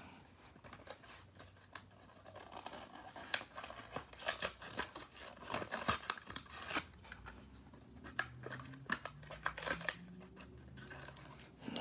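Plastic blister of a Hot Wheels carded diecast being peeled and torn from its cardboard backing by hand: irregular crinkling crackles and snaps, starting about two seconds in.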